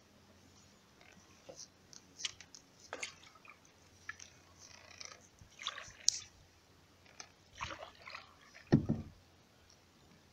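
Canoe paddle working the water: scattered small drips and splashes at irregular intervals, with a louder splash or knock near the end.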